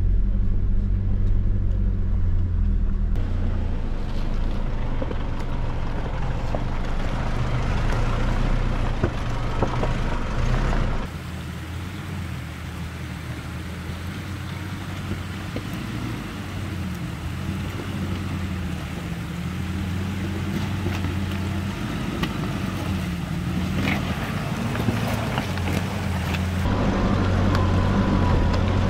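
Nissan Pathfinder R51's engine running at low, steady revs on a rocky off-road track, with scattered clicks and knocks. The sound changes abruptly a few times and is quieter between about 11 and 27 seconds in.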